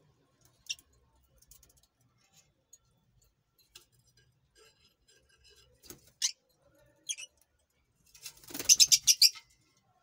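Lovebird giving sharp, high-pitched chirps: a single chirp about a second in, two more around six and seven seconds, then a rapid burst of shrill chirps near the end, the loudest part.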